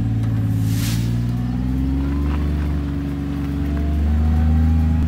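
Motor vehicle engine running steadily at low road speed, its pitch drifting slightly.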